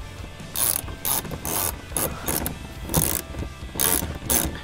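Hand ratchet wrench clicking in short strokes, about two a second, as screws are snugged into the plastic fender trim.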